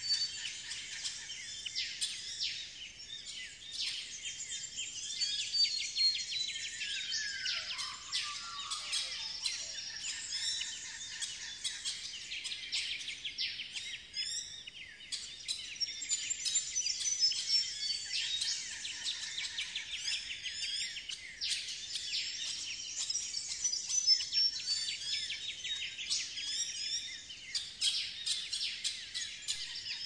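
Dawn chorus of many Australian bush birds, a dense, continuous mix of high chirps, trills and whistles. About seven seconds in, one call slides down in pitch.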